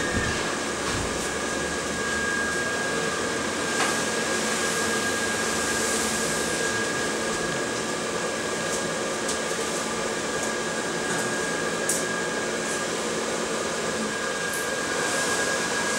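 Steady whooshing hum of the small electric blower fan that keeps an inflatable lawn ornament inflated, with a thin steady whine over it. Two faint knocks, about four seconds in and near twelve seconds.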